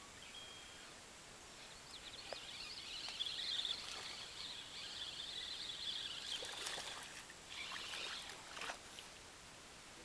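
A hooked fish splashing at the surface beside a small boat: a few short splashes in the last few seconds, over a faint, high, steady buzz.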